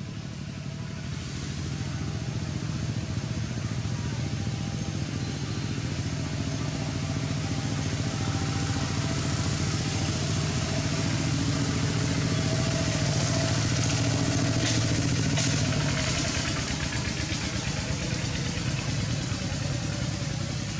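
A motor vehicle's engine running steadily, growing louder toward the middle and easing off near the end, with a few sharp ticks about two-thirds of the way through.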